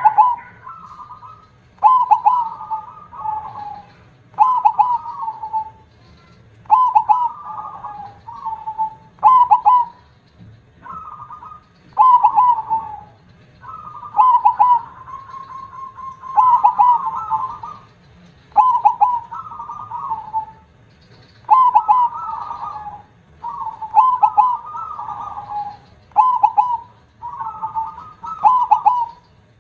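Zebra dove (perkutut) cooing over and over, a short phrase of a few quick notes about every two seconds.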